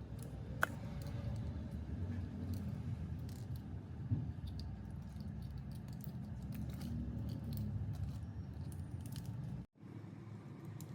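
Small clicks, taps and handling noises, as of hands and tools working on an RC car, over a steady low rumble. There is a sharper click about half a second in and another around four seconds, and the sound cuts out briefly near the end.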